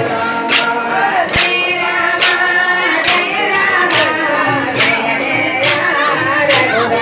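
Group singing over music, with a sharp percussive beat a little more than once a second.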